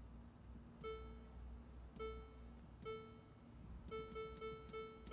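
Electronic keypad beeps from a sintering furnace's control panel as its buttons are pressed to set a program value: four short, mid-pitched beeps about a second apart, then a quick run of four.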